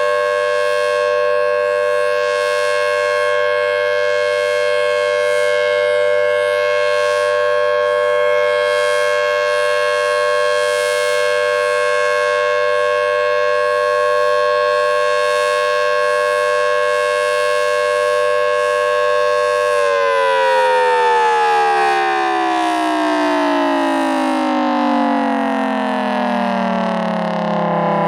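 Federal Signal Thunderbolt 1000T outdoor warning siren sounding its steady full-alert tone, a chord of several steady pitches with no rotation swell because its rotator isn't working. About twenty seconds in it shuts off and winds down, all its pitches falling steadily together.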